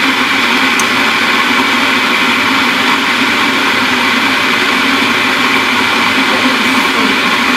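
A loud, steady whirring drone that holds level and does not change.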